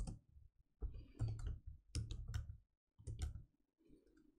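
Computer keyboard typing: short bursts of key clicks, about one cluster a second, with quiet gaps between them.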